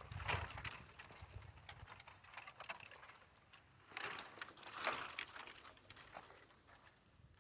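Faint rustling and crackling of dry brush and wood debris, with louder crunching shortly after the start and again around four to five seconds in.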